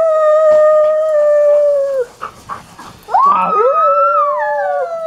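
Dog howling in two long, steady howls, the second sliding down in pitch as it ends.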